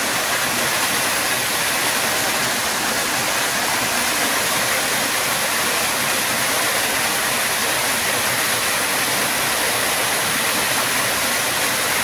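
Stream water rushing over rocks: a steady, even hiss that does not change.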